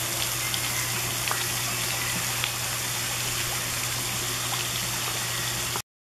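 Steady hiss and patter of a pond fountain's water spray falling onto the water surface, with a low steady hum beneath and a few faint high chirps; it cuts off abruptly just before the end.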